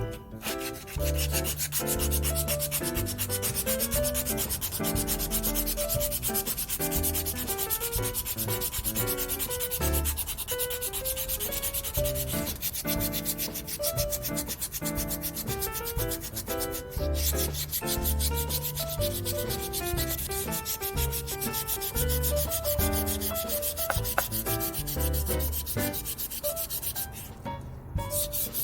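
Rapid, even rubbing strokes of hand sanding on a rusty adjustable wrench, scouring off the rust. Background music with a steady bass runs underneath, and the rubbing stops briefly twice, about two-thirds of the way in and just before the end.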